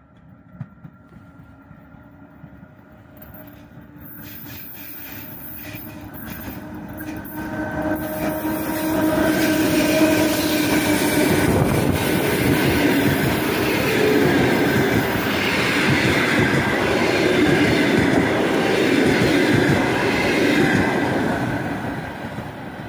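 A passenger train hauled by an EP1 electric locomotive approaches, growing louder over the first several seconds with a faint steady whine. The coaches then pass close by with loud wheel-on-rail rumble and clatter, which fades near the end.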